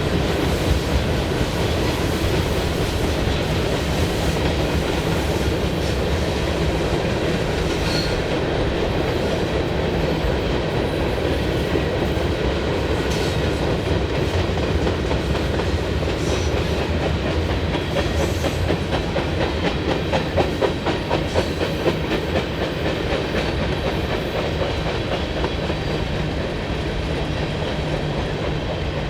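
Freight train cars rolling past at speed, with steel wheels clicking rhythmically over rail joints. The clicking grows louder for a few seconds past the middle.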